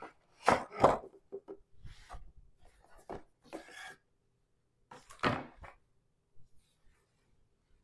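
A small cardboard game box being opened and handled: a string of short knocks, scrapes and rustles as the lid comes off and the box and its contents bump the tabletop. The loudest knocks come near the start and again about five seconds in.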